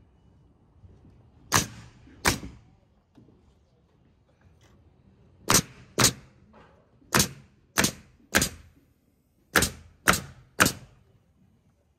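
Pneumatic coil nailer (Metabo HPT) firing nails through OSB roof sheathing into wooden trusses: ten sharp shots in pairs and threes, about half a second apart within each group.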